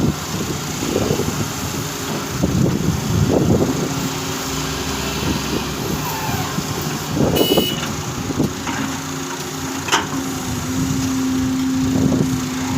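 Doosan excavators' diesel engines and hydraulics working, running steadily with irregular swells as they take load. A steady hum sets in about nine seconds in. There is a brief high squeal around seven seconds and a sharp click at ten.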